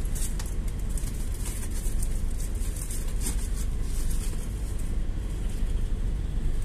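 GAZ-A68R52 City (GAZelle City) minibus on the move, heard from inside: a steady low engine and road rumble with frequent light rattles and clicks.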